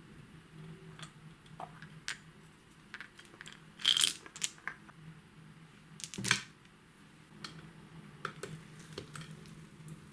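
White slime being worked by hand, giving scattered clicks and crackles from trapped air, with two louder pops about four and six seconds in.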